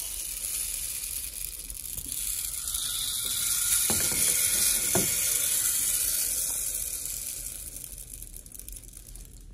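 Toy rain stick, a clear plastic tube of coloured beads, being tipped so the beads run down inside in a steady rushing patter that swells and then dies away near the end. Two light knocks sound about four and five seconds in.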